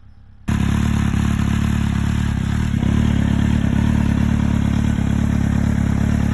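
Kawasaki Z750's inline-four engine idling steadily through a loud aftermarket carbon slip-on silencer (Shark Street GP). It cuts in abruptly about half a second in, after near-quiet riding sound.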